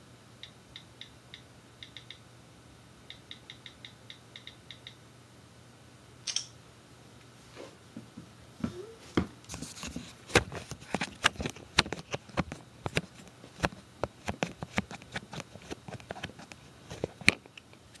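Light clicking in short quick runs, then a busier stretch of irregular clicks and knocks from hands handling things, over a faint steady hum.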